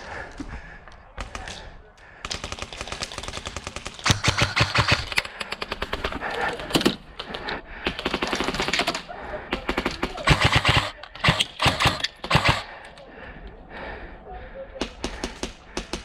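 Airsoft guns firing in rapid full-auto bursts of sharp clicks, about a second or more each, one after another throughout.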